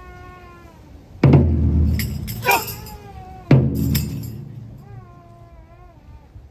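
Chinese ceremonial procession music. A reedy wind instrument plays a wavering, nasal melody, and a big drum and a gong or cymbals are struck loudly twice, about two seconds apart, each hit ringing on.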